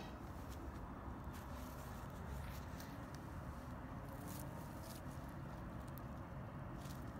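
Faint, steady outdoor background noise: a low hum and hiss, with a few soft, brief clicks scattered through it.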